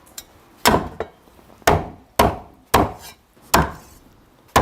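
Cleaver chopping a raw chicken into chunks on a chopping board: about six sharp chops at an uneven pace, each ringing briefly.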